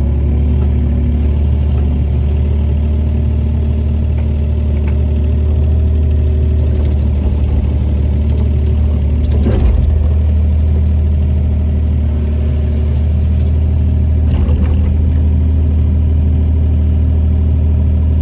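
Wacker Neuson EZ38 mini excavator's diesel engine running steadily, with a clank about halfway through and another a few seconds later.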